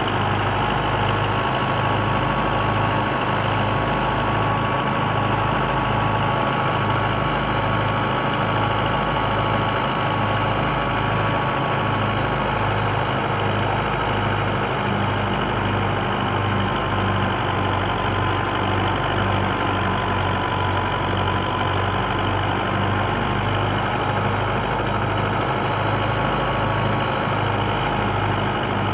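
Belarus 510 tractor's diesel engine running steadily, driving a wheat thresher through its PTO shaft. A steady high whine rides over a low drone that throbs slowly and regularly.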